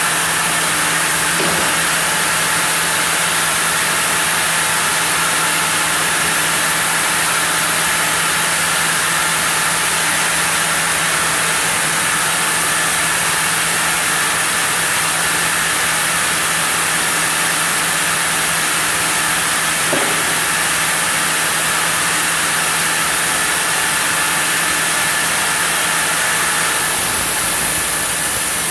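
Sawmill saw running steadily on a zelkova log: an unbroken machine hum over a strong hiss, with a change in the sound near the end.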